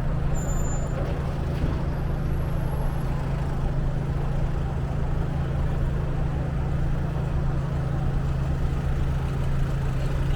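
Street traffic: a steady low engine hum with road noise.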